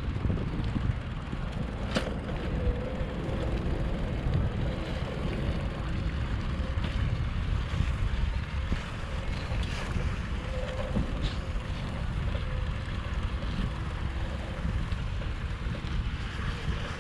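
Wind buffeting the microphone outdoors, a steady low rumble, with a faint wavering hum underneath and an occasional light click.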